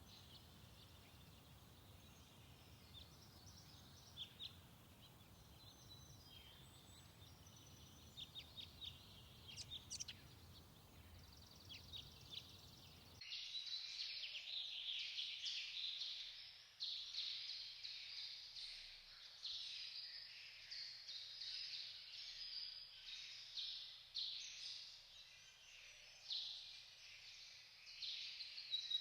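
Wild birds chirping over a low background rumble. About thirteen seconds in it cuts abruptly to a louder, dense chorus of birdsong that runs on without a break.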